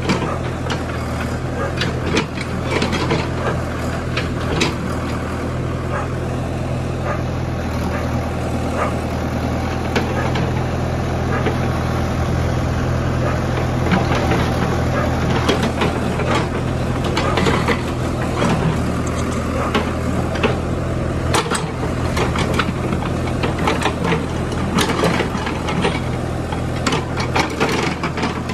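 JCB 3DX backhoe loader's Kirloskar diesel engine running steadily under load while the backhoe digs, with frequent knocks and scraping of the steel bucket against earth and stones.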